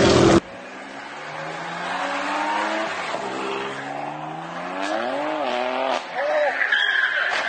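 A BMW M4 coupe's engine revving up in two rising surges, then tyres squealing near the end as the car slides through a turn.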